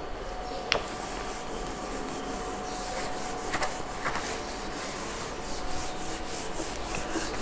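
Cloth rubbing across a whiteboard as it is wiped clean in repeated strokes, with a few sharp clicks along the way.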